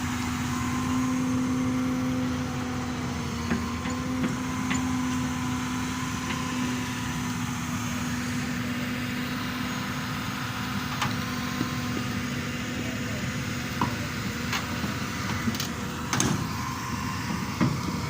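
Diesel engine of a Hyundai 220 excavator running steadily at a low, even hum while the machine is driven up for loading, with a few short, sharp metallic clanks scattered through it.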